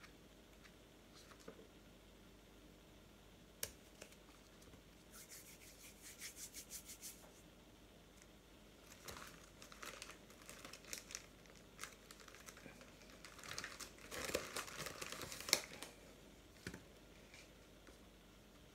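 Faint crinkling and rustling of things being handled. About five seconds in comes a quick run of light ticks, and near the end a louder spell of rustling that ends in a sharp click.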